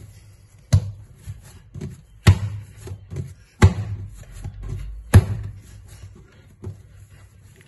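Wholegrain einkorn sourdough being kneaded by hand with the slap-and-fold method: the dough is slapped down hard on the work surface and folded over, giving four loud slaps about a second and a half apart, with softer thuds and rubbing between them.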